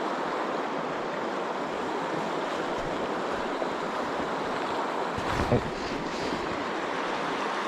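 Steady rush of a trout stream's flowing water, with a brief low thump about five and a half seconds in.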